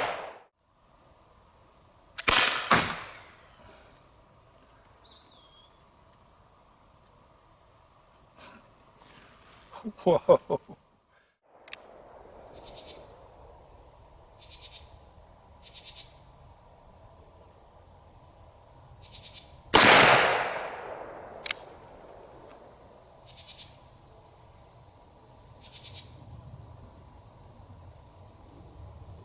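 Antique Colt Single Action Army revolver firing blackpowder .45 Long Colt cartridges: one shot about two seconds in and another about twenty seconds in, with a quick run of sharp clicks from the hammer being cocked in between. A steady high buzz of insects runs underneath.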